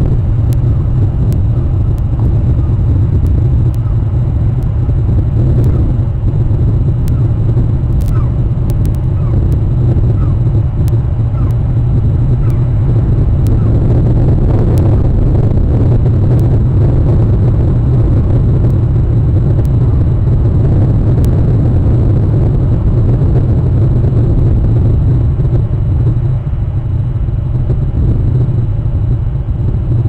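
Steady, loud low rumble of wind buffeting an outdoor webcam microphone, with a few faint short calls in the middle.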